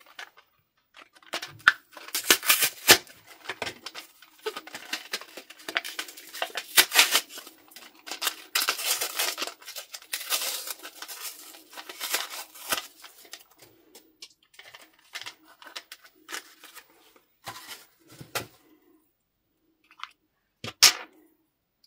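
A white wrapper being torn and peeled off a small plastic pot, with dense crinkling and tearing in quick bursts. The handling thins out to scattered ticks, and a couple of sharp plastic clicks come near the end as the pot's lid is worked.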